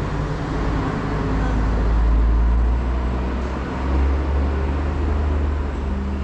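Steady low rumble with broad noise above it.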